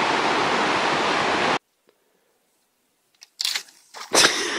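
Whitewater river rapids rushing loudly, cut off abruptly about a second and a half in. Then near silence, broken near the end by two short, loud bursts of noise.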